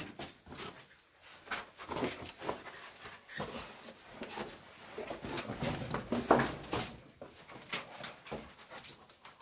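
Scuffing, scraping and knocking of people squeezing and clambering through a narrow rock passage: clothing rubbing against rock and feet shuffling on stone, irregular throughout and busiest about two-thirds of the way through, where the loudest knock falls.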